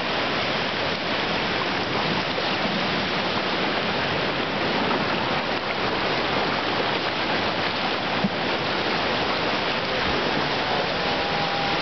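Shallow rocky river running over and around stones: a steady rush of water.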